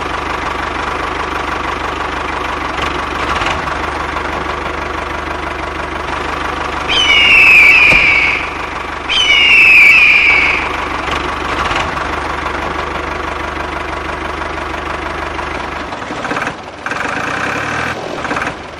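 A tractor engine running steadily, with two loud high calls about seven and nine seconds in that each start high and slide down in pitch. The low rumble drops away about sixteen seconds in.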